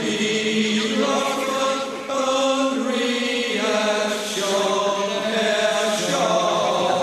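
Slow chanting voices holding long, layered notes that shift to new pitches every second or two.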